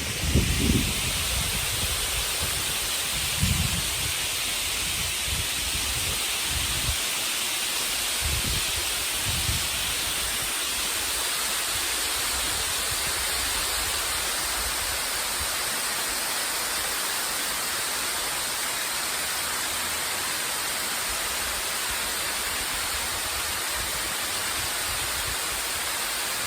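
Steady rushing hiss of flowing water, with a few low bumps in the first ten seconds.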